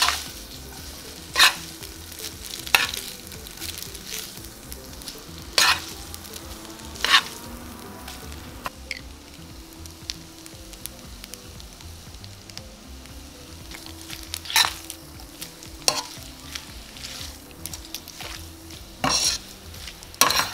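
Fettuccine being tossed in sauce in a hot stainless steel skillet with metal tongs: a steady sizzle, broken by sharp clinks of the tongs against the pan every few seconds.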